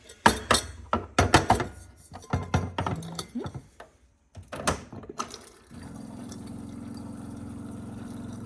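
Kitchen clatter: a run of clinks and knocks of cups and dishes being handled. From just under six seconds in, a steady low electric hum from a kitchen appliance.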